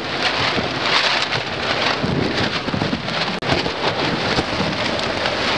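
Hurricane rain and wind: a loud, dense, steady hiss of heavy rain with crackling gusts.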